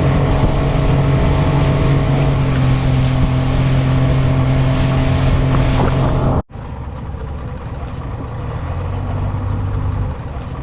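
Boat's outboard motor running steadily under way. About two-thirds of the way in the sound cuts off abruptly and gives way to a quieter, lower engine hum.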